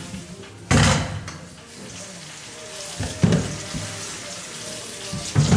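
Kitchen tap running into a stainless steel sink, water splashing over sweet potatoes in a metal colander, with plastic bag rustling. A few louder splashes or bursts stand out, the first about a second in.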